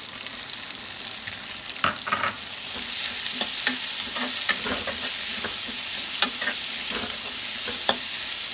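Chopped onions frying in hot mustard oil in a kadhai, sizzling, while a spatula stirs and clicks against the pan. The sizzle grows louder about three seconds in.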